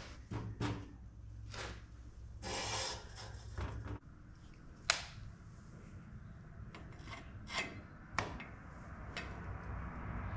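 Scattered light knocks and clinks of a steel bar against a steel welding table, with a short scraping rub a few seconds in, as the bar is stood upright and adjusted. A low hum runs underneath and stops about four seconds in.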